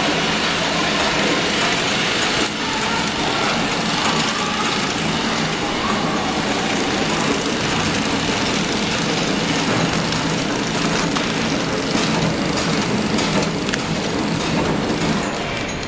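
Horizontal flow-wrapping machine running, packing stainless-steel scouring balls: a steady mechanical din with a low hum and a regular light ticking, somewhat more than once a second.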